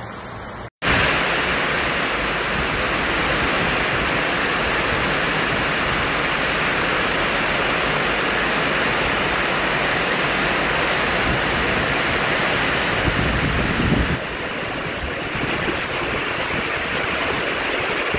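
Heavy downpour falling on a sheet-metal carport roof and flooded pavement: a loud, dense, steady hiss of rain. It starts abruptly about a second in and turns slightly quieter about fourteen seconds in.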